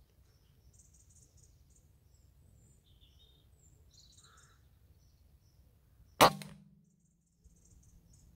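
A single shot from a Weihrauch HW100 pre-charged pneumatic air rifle about six seconds in: one sharp crack followed by a short low ring that fades within about a second.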